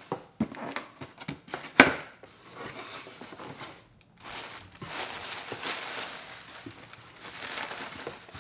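Packing tape on a cardboard box being slit and the flaps pulled open, a run of sharp scrapes and clicks with one loud snap about two seconds in. Then tissue paper rustling and crinkling steadily as hands push it aside.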